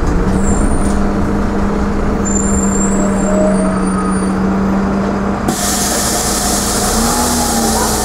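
Cabin sound of a Karosa B961 articulated city bus: the engine and driveline give a steady hum with one held tone that rises briefly near the end. About five and a half seconds in, a loud hiss of compressed air starts and keeps going as the bus pulls up at a stop.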